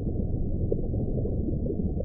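A steady low rumble, deep and without any clear tone.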